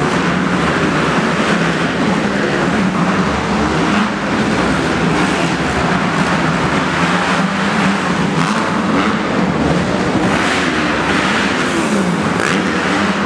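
Several motocross bikes racing together, their engines revving up and down in overlapping rising and falling notes.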